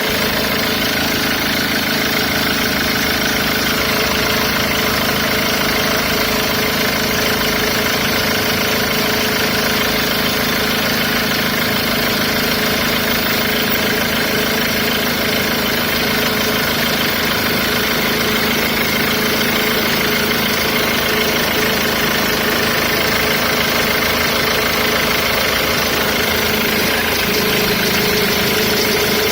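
Ford Mondeo Mk3 2.0 TDCi four-cylinder diesel engine idling steadily before it has warmed up, with the strange engine noise that lasts only until it reaches operating temperature.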